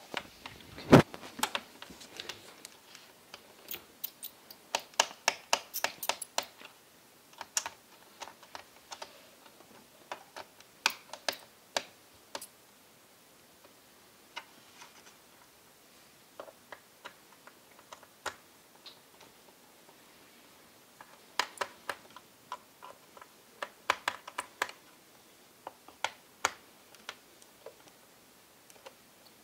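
Small sharp clicks and ticks of a small Phillips screwdriver and its screws on the plastic bottom case of a Sony Vaio F series laptop as the screws are taken out. They come in bursts with pauses between, the loudest knock about a second in.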